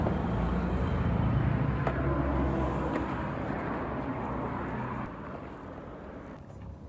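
A motor vehicle's engine running with a low rumble that fades away over about five seconds, with a couple of light clicks.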